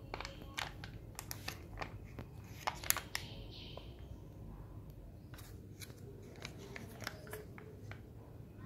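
Plastic-foil sauce sachet crinkling and crackling in the hands as it is held and turned over. The crackles are sharp and short, thickest in the first few seconds and again shortly after the middle.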